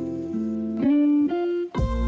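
Background music led by a plucked guitar: a held chord, then picked notes from about a second in, with a deep bass note coming in near the end.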